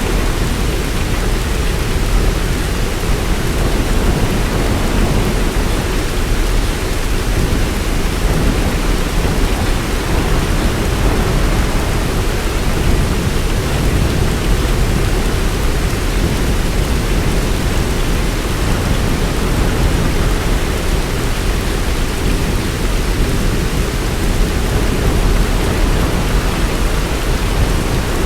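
Heavy rain falling steadily, an even hiss with a deep low rumble beneath it and no separate claps or drops standing out.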